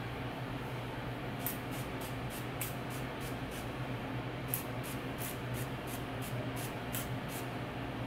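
Fine-mist pump spray bottle of leave-in conditioner being pumped onto hair: a quick series of short hissing squirts, about two or three a second, with a pause about midway, over a faint steady hum.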